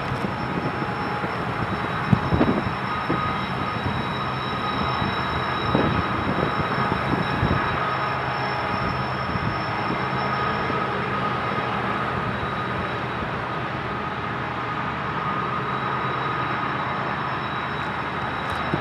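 Heavy Union Pacific manifest freight train climbing slowly up a steep grade: a steady rumble of rolling cars and working diesel locomotives, with thin, steady high tones over it. A sharp knock comes about two seconds in and a smaller one near six seconds.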